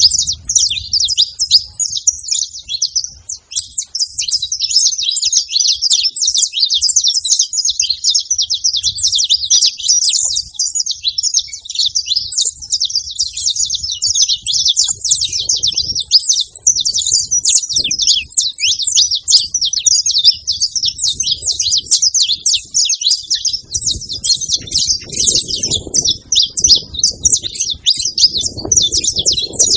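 A flock of wild saffron finches chirping together, a dense unbroken chatter of many overlapping high chirps. A low rumble comes up in the last few seconds under the birds.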